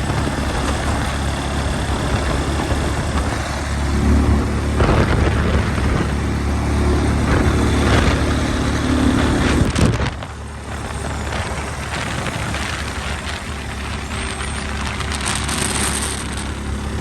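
An engine running steadily with a low, even hum. It grows louder from about four seconds in, then drops and changes tone at about ten seconds.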